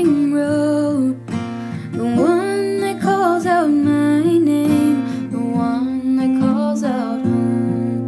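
Background music: a strummed acoustic guitar with a singing voice over it.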